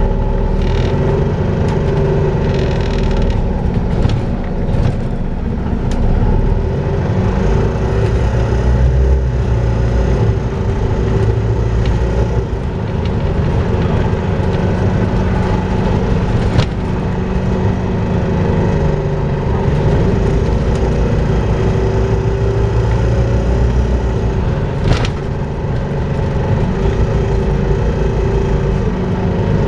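Volvo B5LH hybrid double-decker bus running, with a steady vacuum-cleaner-like whine, known as 'hoovering', held over a low rumble. A couple of sharp knocks, about halfway through and near the end.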